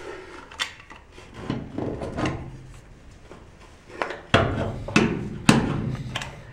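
Manual caulking gun being worked along a wall seam: trigger squeezes and plunger clicks amid rubbing and handling noise. Three loud, sharp clacks come between about four and five and a half seconds in.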